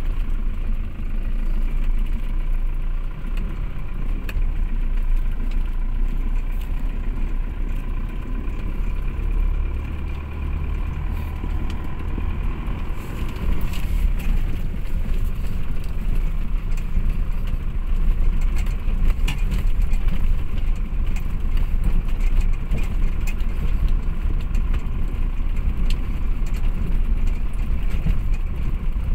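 Car driving slowly over a rough gravel road, heard from inside the cabin: a steady low rumble of engine and tyres with scattered small ticks and knocks.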